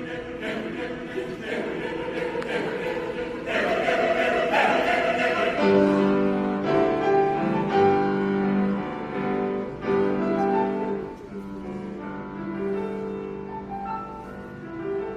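Mixed choir singing with piano accompaniment: a busy, pulsing passage gives way about six seconds in to long held chords.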